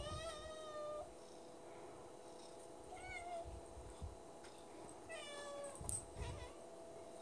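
Domestic cat meowing three times: a long meow lasting about a second, then a short one, then another a couple of seconds later, the begging calls of a cat waiting for treats.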